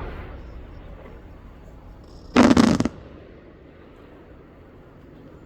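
Aerial fireworks: the rumbling echo of a shell burst fades away, then a quick cluster of sharp bangs comes about two and a half seconds in and lasts about half a second.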